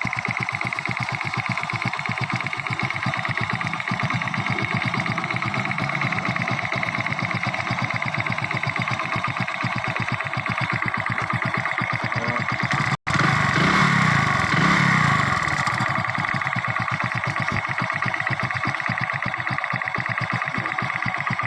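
Hero Splendor Pro's single-cylinder engine idling with a fast, even ticking rattle, getting briefly louder for about three seconds a little past the middle. The rattle comes from a loose spark plug cap on top of the engine, though it sounds like a loose bolt in the magneto or cylinder head.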